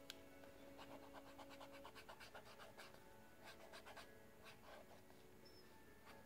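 Faint scratching of a pen tip on sketchbook paper, in short irregular strokes as lines are drawn.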